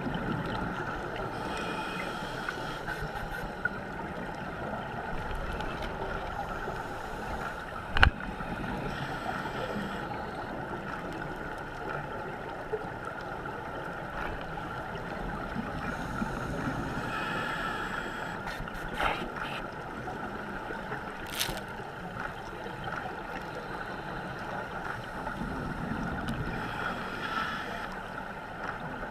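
Muffled underwater sound picked up by a GoPro Hero3 inside its waterproof housing: a steady watery rush with a hissing swell of bubbles three times, typical of a scuba diver exhaling through a regulator. A sharp knock about eight seconds in is the loudest sound, with a few lighter clicks later.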